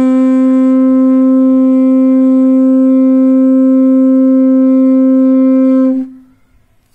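Gada shankh (Australian trumpet shell) conch blown without its mouthpiece: one long, steady note with no change in pitch, held until it stops about six seconds in.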